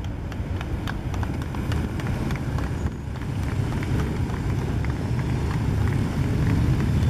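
A procession of police motorcycles rumbling past at low speed, their engines growing louder toward the end as more bikes come near. Scattered hand-clapping from onlookers runs over the engine sound.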